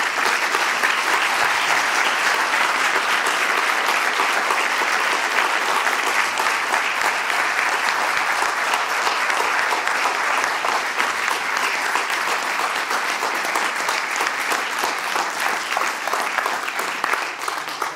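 Large audience applauding: dense, steady clapping that thins out near the end.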